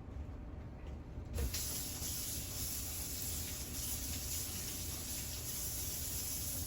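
Kitchen tap running into the sink: a steady hiss of water that starts suddenly about a second and a half in.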